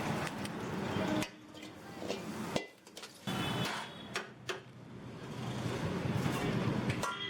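Kitchen clatter: sharp knocks and clinks of metal cookware and utensils over a noisy background, broken by sudden drops about a second in and again past two and a half seconds.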